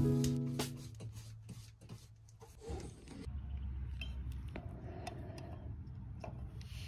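Scratchy rubbing of a bristle chip brush, after guitar music ends about a second in. The brush first dabs epoxy into old screw holes in a fiberglass pan, then is swished clean in a glass jar of acetone.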